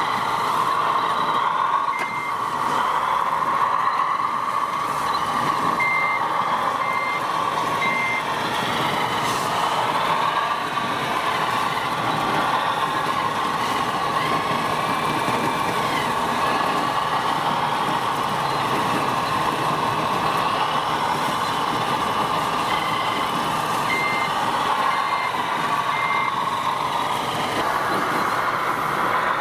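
RC model wheel loader running steadily, with its reversing beeper sounding short beeps about once a second in a few runs as it backs up.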